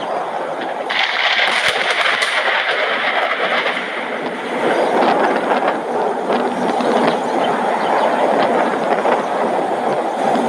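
Heavy thunderstorm rain falling, a steady rushing hiss that grows louder and brighter about a second in.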